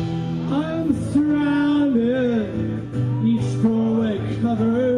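Background music: a song with a singing voice over guitar.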